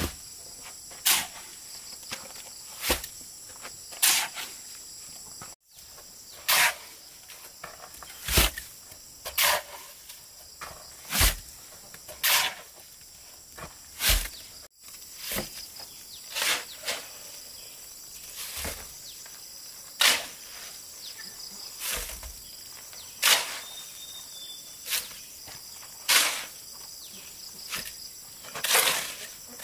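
Repeated sharp knocks, irregularly spaced at roughly one a second, over a steady high-pitched chirring of insects.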